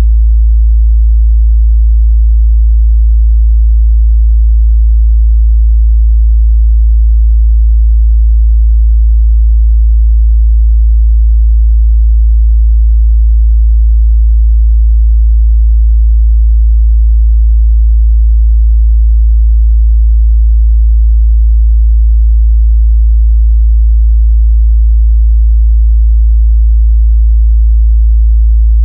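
Steady 55 Hz sine-wave test tone, a loud, unchanging low bass hum.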